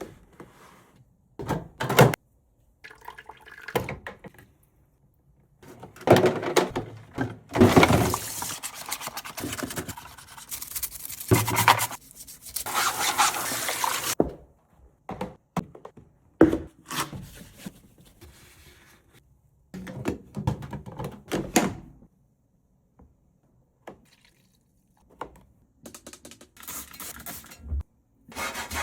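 Handling sounds of a washing machine being cleaned: scattered thunks and clicks, with a stretch of running water in the middle lasting several seconds.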